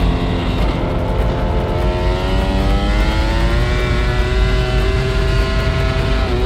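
Two-seater MotoGP racing motorcycle's engine heard onboard at speed over heavy wind rush: the engine note drops early on as the bike rolls into a corner, then rises steadily as it accelerates through and out of it.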